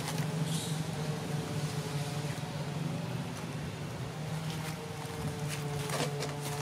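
Steady low motor hum, like a distant engine running, with a few faint clicks about six seconds in.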